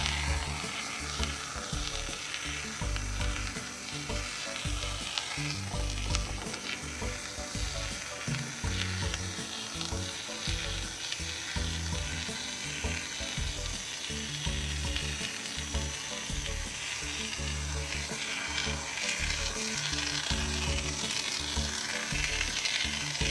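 Expanding polyurethane foam hissing steadily out of a can through a foam dispensing gun as it is laid down in thick beads.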